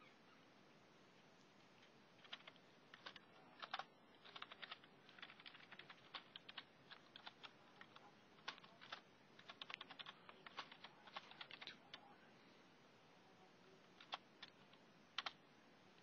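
Faint typing on a computer keyboard: a run of quick keystrokes from about two seconds in until about twelve seconds, then two single keystrokes near the end.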